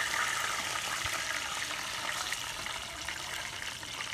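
Pork stomach frying in hot oil: a steady sizzle dotted with fine crackles, easing slightly toward the end, as the pieces turn golden.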